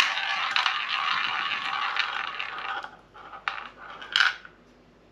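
Ball spinning in a tabletop shot-glass roulette wheel. It rolls round the track with a steady rattle for about three seconds, then clicks a few times as it bounces into a pocket and settles.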